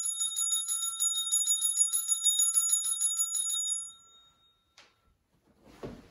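Altar bells (sanctus bells) shaken in a rapid, continuous jingle for about four seconds, then dying away, ringing at the elevation of the host at the consecration. A soft rustle or knock follows near the end.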